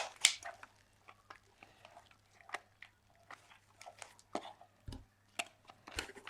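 Scattered light clicks and taps of hands handling a plastic Olympus AF10 compact 35mm camera and its wrapping, with two soft thumps near the end.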